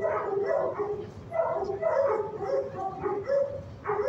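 Several shelter dogs barking and yipping without a break, their barks at different pitches and overlapping.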